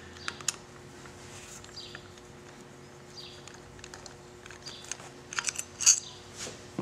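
Light clicks and taps of a Phillips screwdriver working the screws of a plastic motorcycle handlebar switch housing. There is one click about half a second in and a short cluster of sharper clicks near the end, over a steady low hum, with a few faint high chirps now and then.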